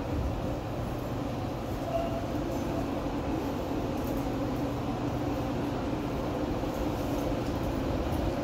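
Montreal Metro rubber-tyred train running through the station: a steady low rumble with a steady hum.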